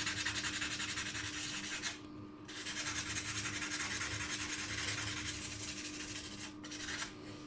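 Fine sandpaper rubbed quickly back and forth by hand over bathtub enamel, a steady scratchy rasp roughening the edges of small chips before filling. It breaks off briefly about two seconds in, then goes on.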